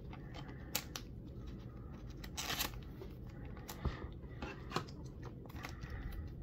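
A Pokémon trading card being slid into a clear plastic card sleeve: soft plastic rustling and scattered light clicks, with a longer rustle about two and a half seconds in.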